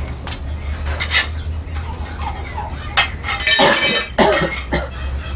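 Steel clinking and clanking in a blacksmith shop: a few irregular metal-on-metal knocks, the loudest about three and a half seconds in, ringing for about half a second, over a steady low hum.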